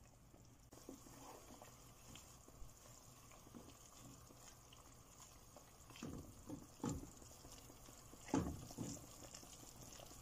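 Pot of broth simmering faintly, with a wooden spoon stirring the chicken and leaves and giving a few soft knocks and scrapes against the pot about six seconds in and again near eight and a half seconds.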